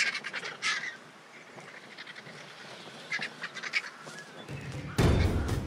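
A feeding flock of griffon vultures squabbling over a carcass: harsh, hissing squawks and cackles in short bursts, near the start and again about three seconds in. About five seconds in, a loud low rumble sets in abruptly.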